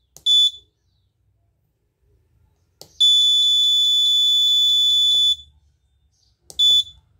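Piezo buzzer on an Arduino bell-timer board beeping with one high steady tone as its push buttons are pressed to set a bell time. There is a short beep, then a click, then a long beep of about two seconds, then another short beep near the end.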